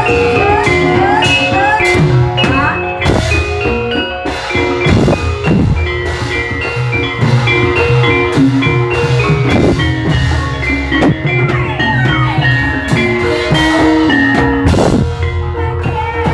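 Javanese gamelan playing ebeg accompaniment: quick runs of ringing bronze notes from kettle gongs and metallophones over a steady drum beat.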